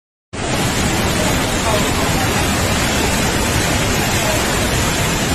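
Loud, steady rush of a floodwater torrent pouring past houses, cutting in abruptly a moment in, with faint voices beneath it.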